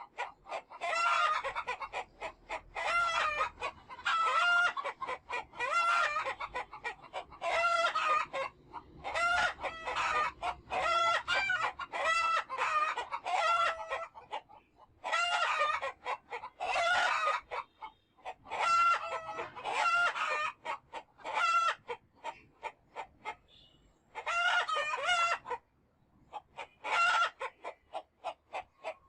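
Domestic chickens calling, with rooster crowing among them, in a long run of short repeated calls with brief gaps between.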